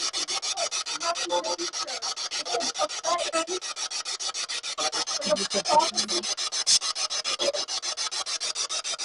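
Spirit box sweeping through radio stations: a fast, even chop of static, about ten pulses a second, with brief scraps of broadcast voices in it.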